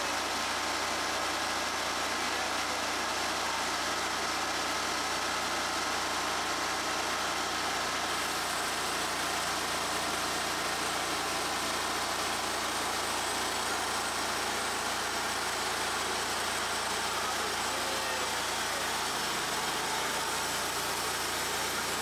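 Timber King 1620 portable bandsaw mill running steadily under power, its engine driving the band blade through a log.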